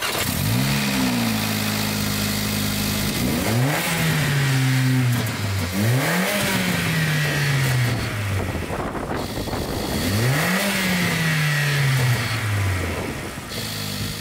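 Mercedes-AMG GLA45's 2.0-litre turbocharged four-cylinder engine, breathing through a newly fitted AMS Alpha intake filter, revved four times. Each rev climbs quickly and falls back slowly toward idle.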